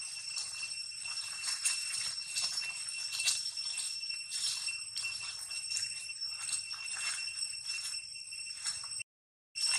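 A steady, high-pitched insect drone with a fast crackling texture. It cuts out completely for about half a second near the end.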